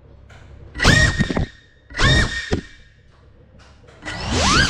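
GEPRC CineLog35 cinewhoop's brushless motors whining in two short throttle punches, each a quick rise to a held pitch and then a drop. Near the end the throttle comes up again into a louder, sustained whine that wavers up and down in pitch.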